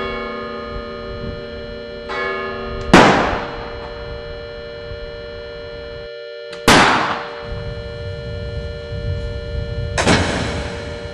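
Dramatic film score: a drone of held notes with three heavy, echoing strikes about three and a half seconds apart, the first the loudest.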